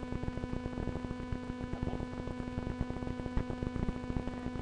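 Steady electrical hum with constant crackling static from a low-quality webcam microphone.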